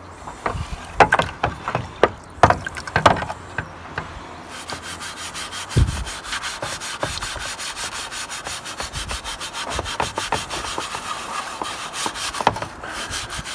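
Scrubbing the plastic parts of a Commodore MPS-801 printer with a mild abrasive cleaner. A few separate rubbing strokes and knocks give way, about four seconds in, to rapid, even back-and-forth scrubbing that stops shortly before the end.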